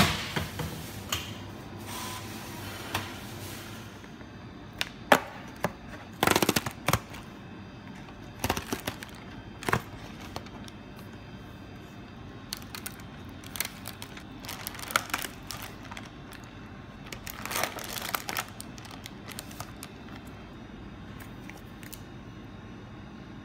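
Paper food box and clear plastic takeaway tray being handled and opened: scattered clicks, taps and rustling, with the loudest crackling burst about six seconds in and another cluster of rustling a few seconds past the middle.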